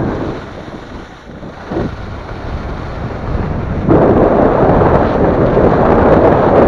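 Skis scraping and hissing over crisp, crunchy snow, with wind rumbling on the action camera's microphone; the scrape grows much louder about four seconds in.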